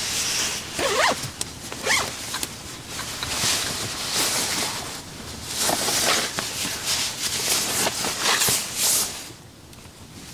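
A zip being undone and the nylon shell of a puffer jacket rustling in a series of swishes as it is pulled off, dying down near the end.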